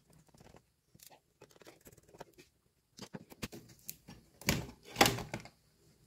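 Handling noise from a Lenovo G50's 15.6-inch LED screen panel being worked loose in its plastic lid: light scattered clicks and taps, then two louder short scraping bumps about four and a half and five seconds in as the panel is tipped forward out of the lid.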